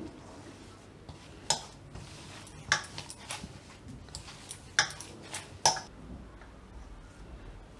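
A stainless steel mixing bowl knocking and clinking about five times, spread out, as fresh chhena (paneer) is kneaded in it by hand, pressed down with the palm.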